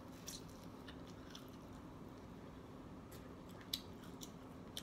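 Close-up eating sounds: scattered wet clicks and smacks from chewing steamed shrimp and corn and from fingers peeling shrimp. A sharper click comes about three-quarters of the way through.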